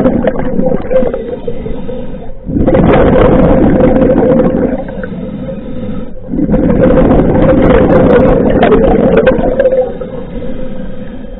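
Scuba diver breathing through a regulator underwater: loud bubbling exhalations alternating with quieter inhalations, a breath about every four to five seconds.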